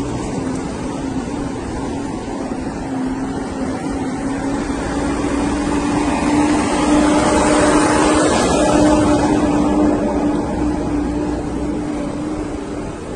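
Military cargo trucks in a convoy driving past, their engines running with a steady hum that swells to its loudest about seven to nine seconds in as a truck passes close, then eases off.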